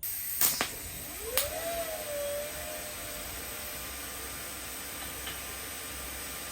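TIG welding arc running on a carbon steel fillet weld as a second pass is laid over the first: a steady, even hiss that starts abruptly, with two sharp clicks in the first second and a brief rising-then-steady tone about a second and a half in.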